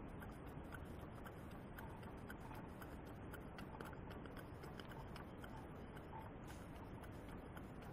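Live steam model engines running: a faint steady hiss with light, irregular ticking.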